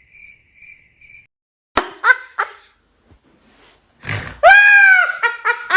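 Cartoon animal character vocalizing: a few short grunts about two seconds in, then a loud drawn-out cry that rises and falls in pitch near the end. A faint repeated beep, about three a second, sounds at the start and stops after about a second.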